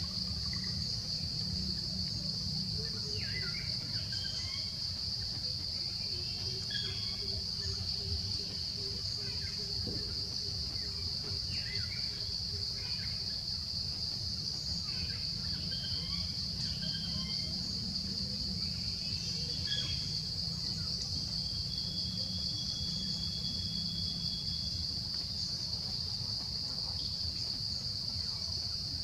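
Steady high-pitched drone of insects, unbroken throughout, over a low rumble, with scattered short chirps.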